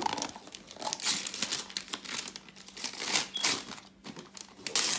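Gift wrapping paper being torn and crumpled off a cardboard box by a child's hands, in irregular rustling bursts.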